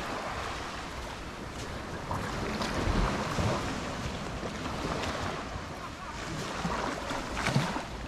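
Small waves washing onto a sandy beach, surging about three seconds in and again near the end, with wind buffeting the microphone.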